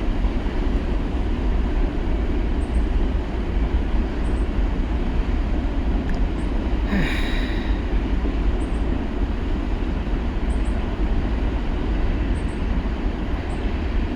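A long CSX freight train's cars rolling past: a steady, dense rumble of steel wheels on rail. Faint paired clicks come every second or two, and a brief brighter hiss or screech rises about seven seconds in.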